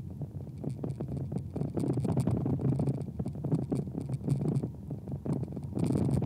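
Cabin noise of a 1999 Volkswagen Beetle driving slowly: a steady low rumble of engine and road, with frequent scratchy rattles and knocks close to the microphone.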